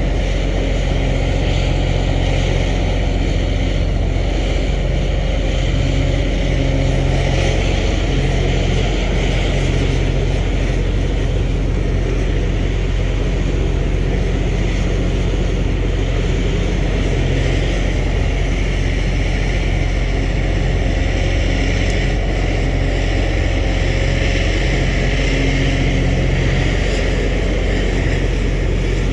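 Cat 349F hydraulic excavator's six-cylinder C13 diesel running steadily under working load as it digs and swings its boom. Its low engine note shifts now and then as the load changes.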